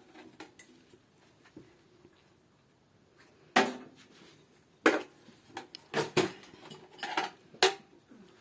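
Metal clinking and knocking, as of hand tools and metal faucet parts being handled during a faucet repair: about six sharp strikes over the last five seconds, two of them close together about six seconds in.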